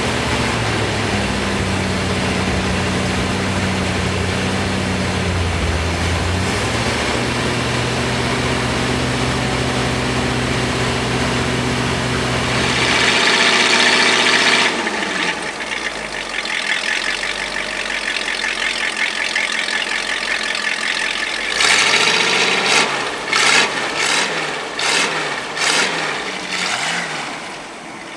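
Rebuilt 1957 Cadillac 365 V-8 running on an engine run-in stand during its break-in, held at a fast idle. Its note shifts about a quarter of the way through; about halfway through the deep rumble drops away, leaving a hissier sound with uneven surges near the end.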